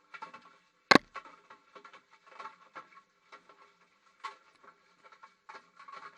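A GoPro tumbling inside a washing machine drum: irregular knocks and rattles, with one sharp, loud knock about a second in.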